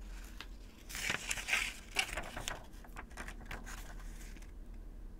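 Sheets of paper handled and cut with scissors. A burst of paper rustling with sharp snips and clicks comes about a second in, followed by fainter ticks and rustles.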